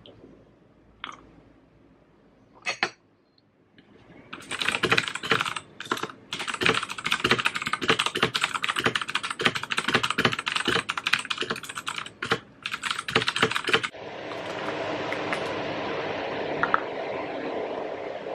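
Fast typing on a mechanical computer keyboard, a dense run of key clicks that starts about four seconds in and stops after about ten seconds, with a few single clicks before it. Near the end the clicking gives way to a steady hiss of room noise.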